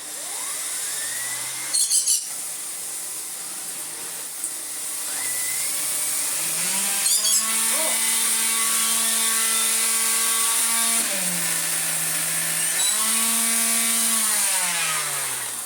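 Vacuum cleaner motor spinning up with a rush of air, then an air-driven Miele cat and dog turbo brush head whirring with a pitched hum that drops, rises again and winds down near the end, with a couple of sharp clicks. The head is not sounding too healthy: a sign of a worn turbo head.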